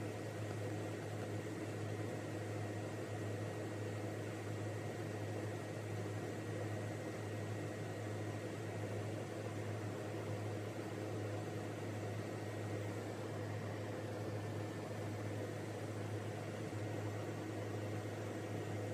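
Steady low hum under an even hiss: background room noise, with no distinct sound from the feeding snake.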